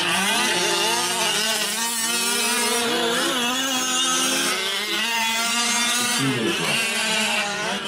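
Several 1/5-scale gas RC trucks' small two-stroke engines running together, their pitches rising and falling over one another as the throttles open and close.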